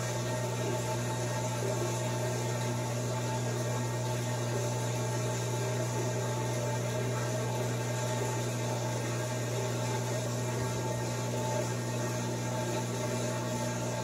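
Whirlpool top-loading washing machine running with a steady low hum and a whir over it, a noise its owner finds weird.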